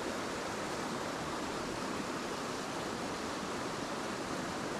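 A small mountain creek rushing steadily over a little cascade and riffle into a pool.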